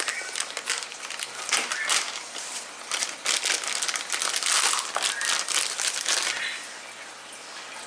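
A plastic bag holding RC truck tires being opened and handled: rapid crinkling and rustling, busiest in the middle and dying down near the end.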